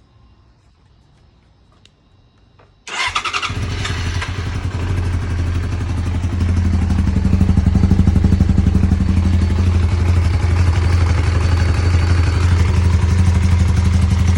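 A vehicle engine starts suddenly about three seconds in and settles into steady running with a fast, even ticking pulse. The owner puts the ticking down to an exhaust leak.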